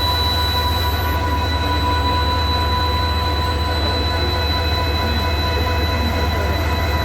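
EMD WDG-4D diesel-electric locomotive's 16-cylinder two-stroke 710 engine running at a steady idle: a constant deep hum with steady high-pitched whining tones over it.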